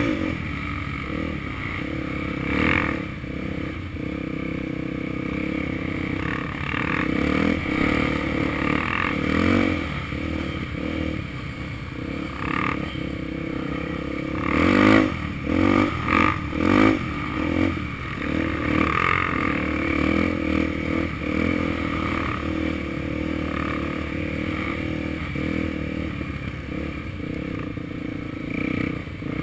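Honda XR250 Tornado motorcycle engine, a 250 cc single-cylinder four-stroke, running steadily with a few quick throttle blips about halfway through.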